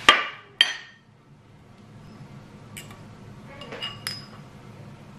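Metal cutlery clinking against a ceramic plate and bowl: two sharp, ringing clinks just after the start, then a fainter one and a quick cluster of clinks around three to four seconds in as the bowl of egg sauce is handled over the plate.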